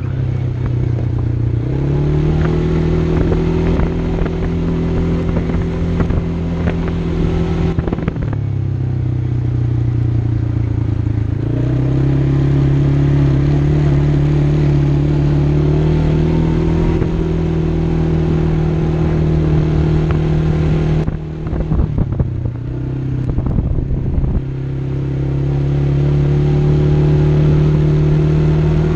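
Quad (ATV) engine running under way, its note holding steady with changes in speed: it rises about a second in and again after about eleven seconds, and falls back about eight seconds in and again around twenty-one seconds. A short run of knocks and clatter comes just after the second drop.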